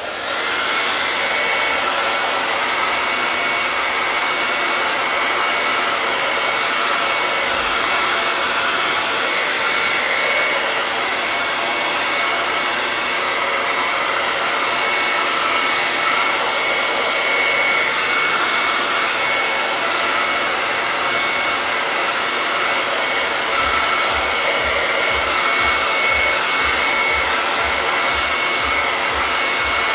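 Handheld hair dryer running steadily with a rush of air and a steady high whine, blown over a freshly chalked wooden sign to dry it.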